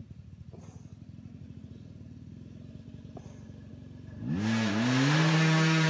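KTM 250 enduro motorcycle engine: a faint, low, fast-pulsing rumble at first, then about four seconds in it revs up sharply and loudly, dips once and holds at high revs.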